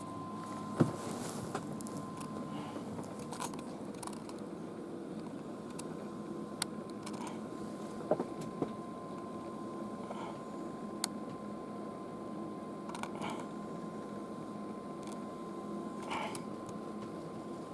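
Handling noise from a video camera: scattered small clicks and knocks, the sharpest about a second in and about eight seconds in, over a steady hum with a faint high whine.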